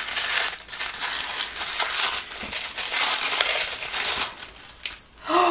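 Christmas wrapping paper being crumpled and pulled open by hand: a dense, irregular crinkling rustle that eases off near the end, followed by a brief vocal sound.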